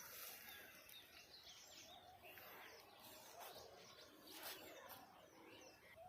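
Faint chorus of several small birds chirping over one another, short rising and falling calls throughout.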